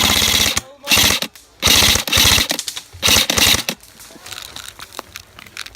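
Airsoft rifle firing loud, rapid full-auto bursts: one ends about half a second in, three more follow in quick succession, then a few scattered clicks.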